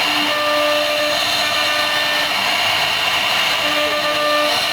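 CNC router spindle cutting into a wooden panel: a steady high whine over a hiss, with a few held tones that drop away in the middle and return near the end.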